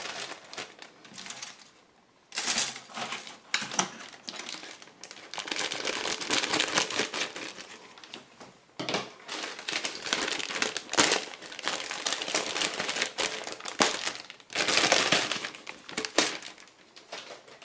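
Clear polythene parts bag crinkling and rustling in irregular bursts as a grey plastic model-kit sprue is pulled out and handled, with a short lull about two seconds in.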